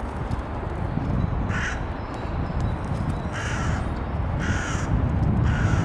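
A bird calling four times, short calls spaced about a second apart starting about a second and a half in, over a steady low rumble.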